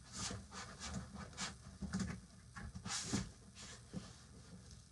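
Cardboard and packing material being handled and pulled about during an unboxing: a run of irregular rustles and scrapes, the loudest about three seconds in.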